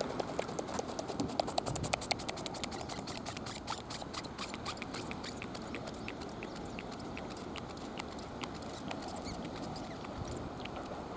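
A pufferfish grinding its teeth: a fast run of sharp clicks, densest over the first few seconds and thinning out toward the end.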